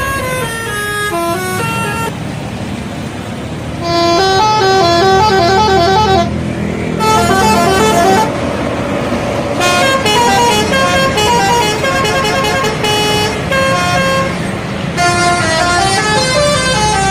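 Indonesian bus 'telolet' horn, a set of air-horn trumpets playing fast melodic runs of stepping notes in several bursts, over the low rumble of the bus engine.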